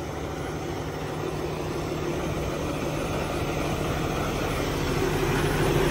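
Diesel semi-truck engine idling, a steady low hum that grows gradually louder.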